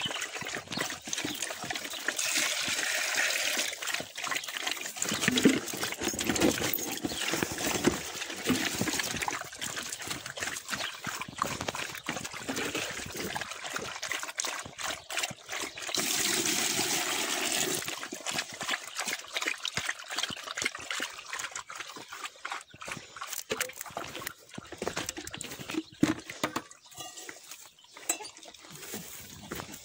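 Footsteps crunching and scraping over stony rubble and dirt, with many irregular clicks and two longer stretches of rushing noise, about two seconds in and about sixteen seconds in.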